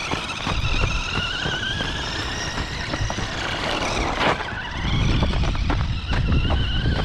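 Small electric RC car's motor and drivetrain whining, rising and falling in pitch as it is driven over dirt, with scattered clicks of tyres on stones. A rough low rumble comes in about five seconds in.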